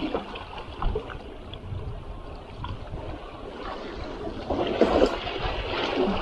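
Water splashing and trickling as a freshly caught greater weever is rinsed by hand, growing louder and busier about four and a half seconds in.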